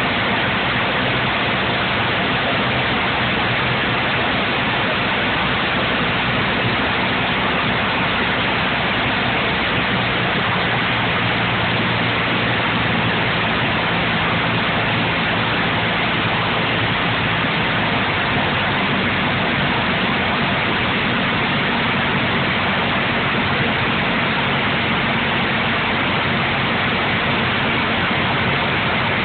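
Steady rushing cabin noise of an airliner on its approach to land: air rushing past the fuselage and engine drone, with a faint low hum underneath that shifts slightly in pitch about two-thirds of the way in.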